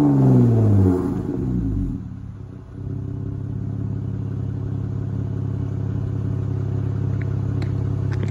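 Jeep Wrangler JLU's 3.6-litre V6 through a muffler-delete Pypes tailpipe, with only the stock resonator left. The revs fall away from a blip in the first second or so, dip briefly, then settle into a steady idle.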